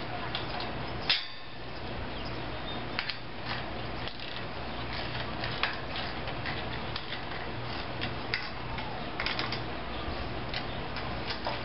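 Irregular light metallic clicks and taps of tools and nuts as bolts are tightened on a rotor's base plate, over a steady low hum.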